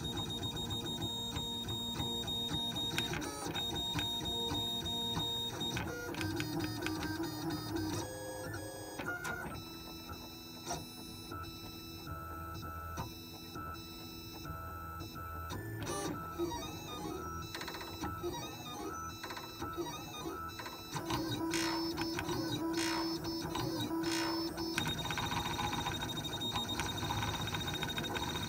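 Stepper motors of a home-built 3D printer whining as they drive the print head and bed, the pitch holding steady and then jumping to a new tone every second or so as each move changes direction and speed.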